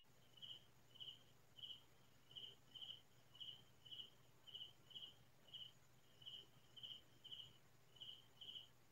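Cricket chirping in the night, a steady train of short high-pitched chirps at one pitch, about two a second, faint.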